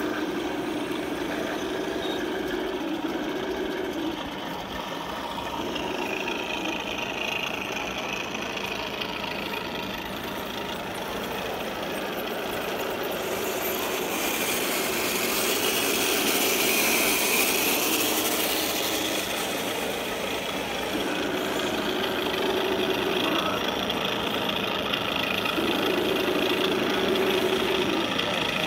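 Radio-controlled scale model tanks running, their onboard sound units playing engine sounds through small speakers. The engine note comes and goes in stretches as the throttle changes, with a higher whine at times.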